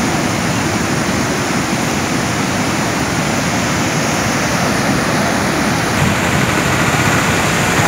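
Flooded Cheruthoni river rushing past, a loud, steady rush of fast-moving floodwater.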